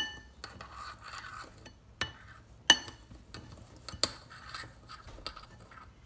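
Metal spoon stirring crushed biscuit crumbs and melted butter in a ceramic bowl: soft scraping and gritty stirring, broken by a few sharp, ringing clinks of the spoon against the bowl, the loudest about two and a half and four seconds in.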